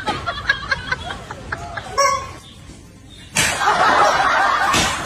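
Voices and laughter. After a brief lull, a louder burst of laughter starts about three and a half seconds in.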